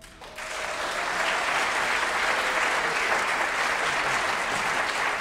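Audience applauding at the end of a performance. It breaks out just after the start and builds to a steady level within about a second.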